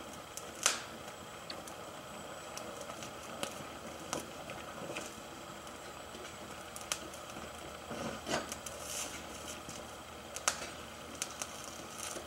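Gas torch flame hissing steadily while torch-brazing steel, with the flux and bronze filler rod crackling and popping at the hot joint in scattered sharp clicks, the loudest just under a second in.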